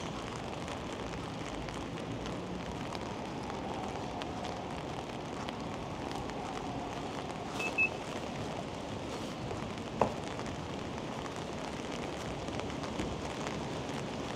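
Steady hiss of rain and wet-street traffic in a city, with a faint tone that rises and falls slowly over a few seconds. About halfway through come two short high beeps, and a sharp knock follows a couple of seconds later.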